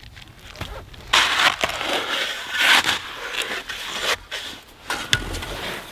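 Steel spade blade crunching and scraping into wet, gravelly sand while digging for clams. The crunching is heaviest from about a second in to about four seconds, followed by a couple of short sharp knocks.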